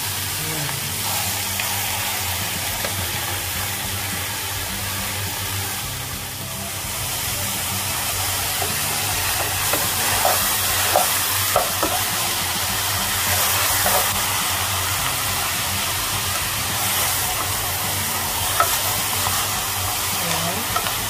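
Beef shank pieces frying in hot oil in a pressure cooker pot, a steady sizzle. Tongs click and scrape against the pot several times in the second half as the meat is turned.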